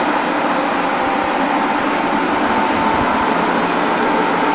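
Air-driven hydraulic pump of a Gedore press running steadily, a loud hiss with a steady hum, as it builds pressure against a driveshaft seized in its wheel hub. The shaft does not move, and the pressure tops out at 17 bar.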